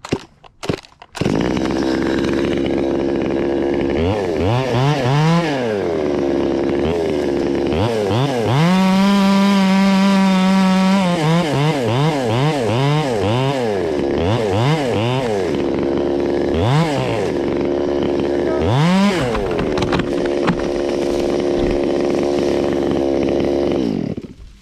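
Stihl MS 200T two-stroke top-handle chainsaw catching about a second in, idling, then revved in repeated short blips and one held high rev of about three seconds, and shut off near the end. The owner says it isn't running right.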